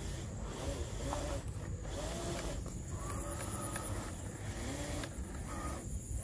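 Electric motor of a 1/10-scale RC crawler whining in short rising-and-falling pulses, about one a second, as the throttle is feathered to creep slowly over grass, with a steady low rumble underneath.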